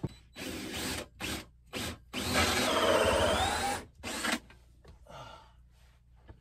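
Power drill driving an old, dull hole saw into the wooden rim joist. It runs in a few short bursts, then one longer run in which the motor's pitch sags under the load and recovers, then a last short burst.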